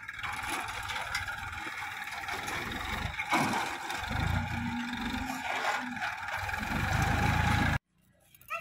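Tractor engine running steadily under load as it pulls a rear-mounted implement through dry soil, cutting off abruptly near the end.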